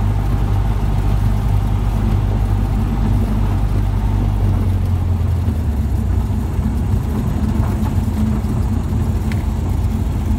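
Cessna 150's four-cylinder Continental O-200 engine and propeller running at low power, heard from inside the cabin as a steady drone. Its note shifts a little about halfway through.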